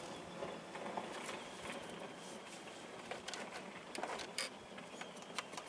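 Faint background noise with a few short, light clicks and taps, about four seconds in.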